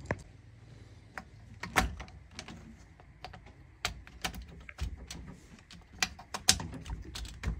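Irregular light clicks and knocks as spark plug caps and wires are handled and pushed down onto the spark plugs of a three-cylinder snowmobile engine.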